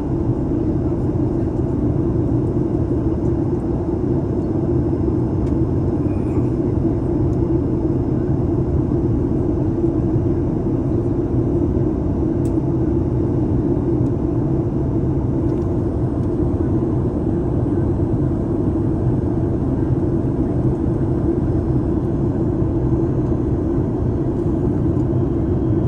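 Steady cabin drone of a Boeing 737 MAX 8 airliner in flight, a low, even rush of engine and airflow noise heard from inside the passenger cabin.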